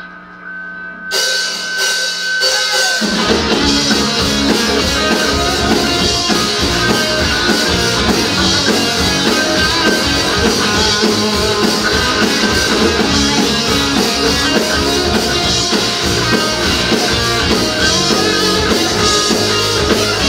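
Live rock band with electric guitar, bass and drum kit playing an instrumental song intro. It starts about a second in, and the bass and drums fill it out about two seconds later into steady full-band playing.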